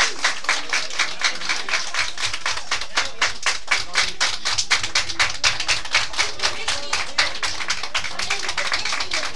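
A roomful of schoolchildren clapping together in a fast, even rhythm, about five claps a second.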